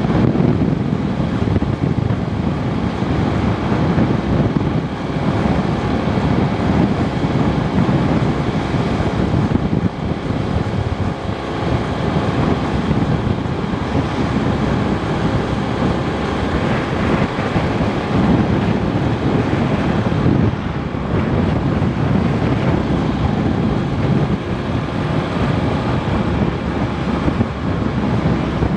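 Wind buffeting the microphone on a moving step-through motorcycle, with the small engine running steadily underneath.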